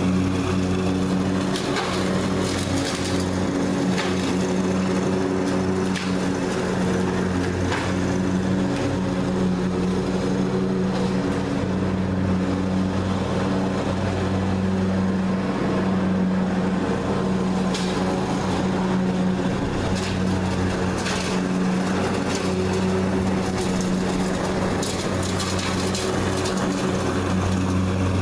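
Riding lawn mower with a rear grass-collecting bagger running steadily while it mows, its engine holding an even pitch, with a few brief ticks over the hum.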